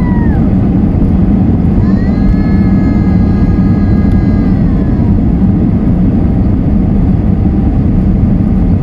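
Cabin noise of an Airbus A320 rolling along the runway just after landing: a loud, steady low rumble from the engines and wheels. About two seconds in, a whine rises, holds for about three seconds and falls away.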